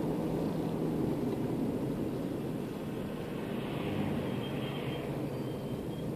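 Steady engine and tyre noise of a car driving along a town road.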